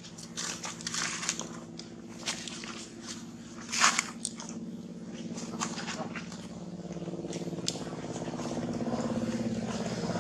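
Dry leaf litter crackling and rustling under a moving monkey, in sharp irregular snaps during the first half. Under it runs a steady motor hum that grows louder in the second half.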